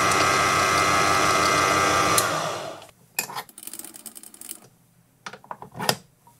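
Proxxon PD 250/e mini lathe running with a steady motor whine, then switched off a little over two seconds in, its pitch falling as it spins down. A few light clicks and metal taps follow as the tool holder is changed.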